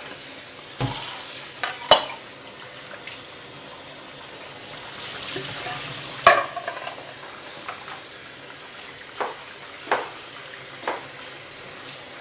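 Kitchen tap water running steadily onto peeled shrimp in a perforated metal strainer, rinsing off the marinade, with several sharp metal clinks and knocks of the strainer against the stainless steel sink and faucet; the loudest come about two seconds and six seconds in.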